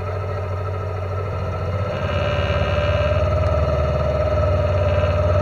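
An engine running steadily, getting somewhat louder about two seconds in.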